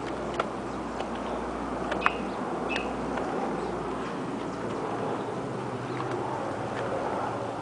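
Steady outdoor background hiss with scattered light taps from footsteps and camera handling, and two short high chirps about two and three seconds in.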